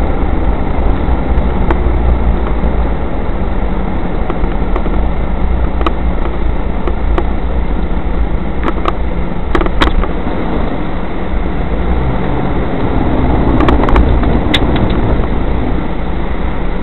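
Car driving along a rough lane, heard inside the cabin: a steady engine and tyre rumble with scattered knocks and ticks, then a swelling rush of water about fourteen seconds in as it drives into flood water that sprays over the windscreen.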